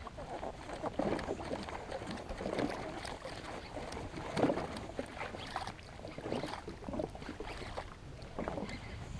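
Small waves lapping and slapping irregularly against the hull of a drifting jet ski, with the engine off.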